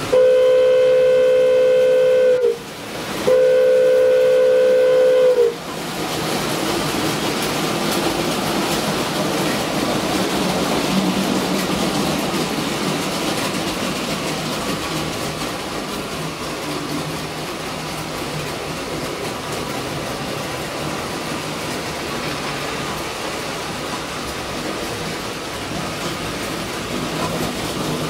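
Model train whistle sounding two long blasts, a chord of close tones, each about two seconds long; then an electric model train running round the layout with a steady rumble and rattle on the track.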